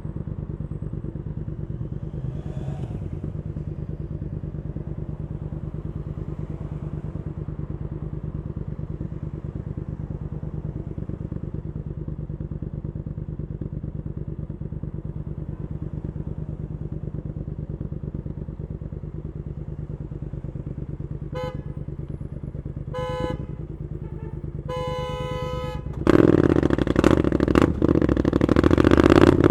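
Triumph Scrambler 900 parallel-twin with an Arrow exhaust running steadily at low revs. A vehicle horn honks three times near the end, the last honk the longest. The engine then revs up sharply and loudly, its pitch rising.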